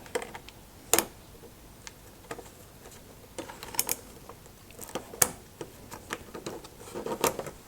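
Irregular small clicks and taps of metal parts being handled while a prototype folding knife is fitted together, the sharpest about a second in.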